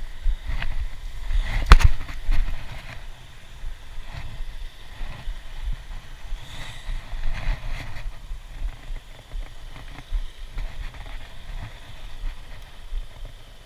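Handling noise from a spinning rod and reel held close to the microphone: soft knocks and rubbing over a low wind rumble. One sharp click a little under two seconds in is the loudest sound.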